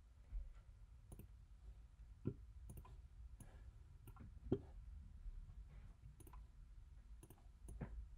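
Faint, irregular clicking of a computer mouse, about ten clicks, the sharpest about four and a half seconds in.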